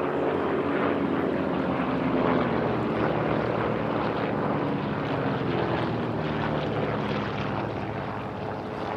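Several Saab 91 Safir light aircraft flying aerobatics overhead, their flat-six Lycoming piston engines and propellers running at power with several engine notes overlapping and slowly shifting in pitch. The sound fades a little near the end.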